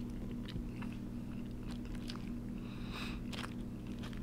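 Close-miked chewing of a first bite of breaded chicken topped with cheese and pizza sauce: scattered small wet clicks and crunches, with a short hissy smack about three seconds in, over a steady low hum.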